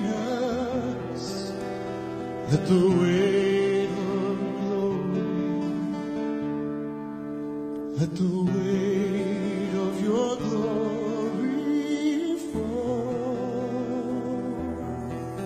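Worship song: a solo voice singing slow, held notes with a wide vibrato over sustained accompaniment, new phrases entering a few times.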